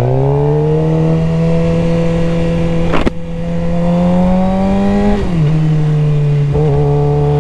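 2023 Suzuki GSX-R 600's inline-four engine running on the move, its pitch holding and slowly climbing under throttle. There is a sharp click about three seconds in, then the pitch drops a little past five seconds in and holds steady again.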